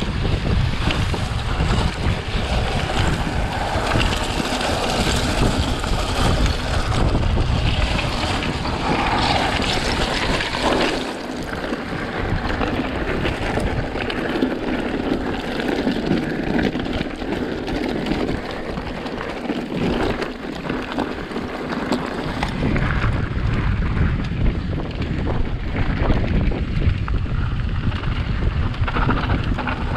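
Wind buffeting the microphone of a bike-mounted camera at speed, over the hiss and crunch of mountain bike tyres on loose scree. The low wind rumble drops away about eleven seconds in and comes back later.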